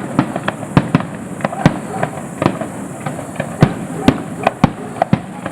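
Fireworks display: a rapid, irregular series of sharp bangs and crackles, several a second, over a steady hiss.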